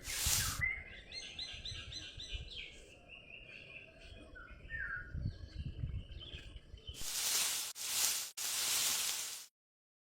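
Birds chirping in quick repeated series of notes over a low background rumble, followed near the end by three loud bursts of hiss, each about a second long.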